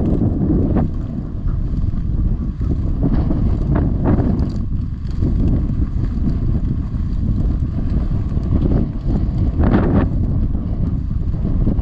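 Wind buffeting the microphone in a steady low rumble, with a few brief rustles, the most distinct about ten seconds in.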